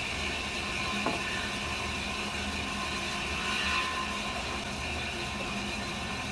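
Band saw running steadily without cutting, a constant machine hum with a light knock about a second in.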